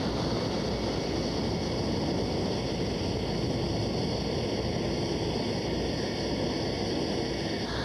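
Steady vehicle rumble and hiss, with a slight change in character just before the end.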